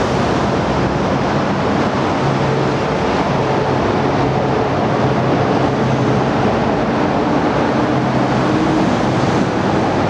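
Steady roar of distant road and rail traffic mixed with wind, with a low droning hum that swells and fades several times.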